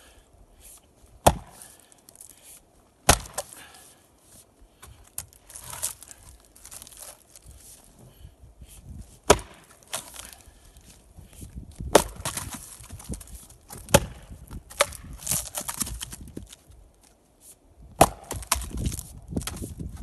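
Axe splitting ponderosa pine rounds: about six loud, sharp strikes at uneven intervals, with quieter knocks between them.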